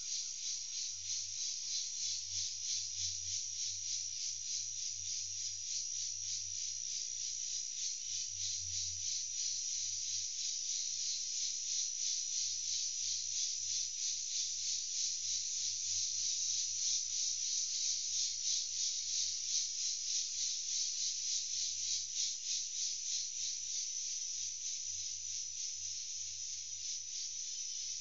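Insect chorus in the bush: a steady high-pitched shrill with a fast, even pulse that never stops.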